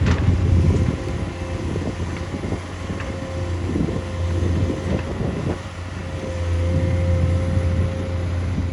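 Heavy construction machine's diesel engine running steadily, with a constant high whine over the low engine drone and a few clanks and knocks.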